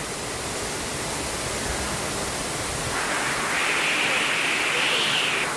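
Steady rushing of a waterfall, with a brighter hiss coming in a little past halfway.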